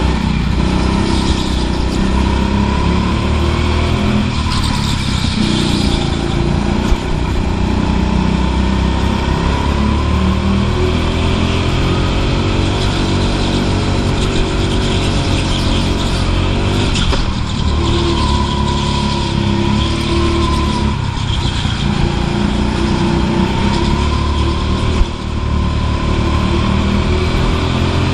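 Go-kart engine heard onboard, its revs rising and falling continuously as the kart laps, with two brief sharp knocks, one about seven seconds in and one near the end.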